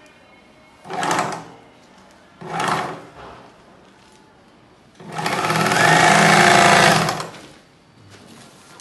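Table-mounted bag closer machine stitching bags: two short runs of about half a second, about a second in and again about a second and a half later, then a longer, louder run of about two seconds, stopping before the end.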